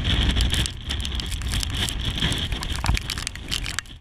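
Gale-force storm wind buffeting the microphone in a heavy low rumble, with a steady crackle of sharp ticks from driven rain hitting it. The sound fades out near the end.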